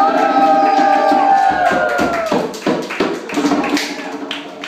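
A group of people singing a birthday song and holding its long final note over steady hand clapping. The singing stops about two seconds in, and the clapping and tapping go on.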